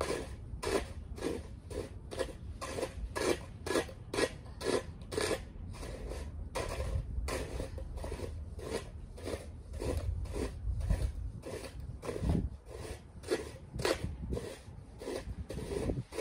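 Repeated scraping strokes of digging into packed snow, about two or three a second, over a low rumble.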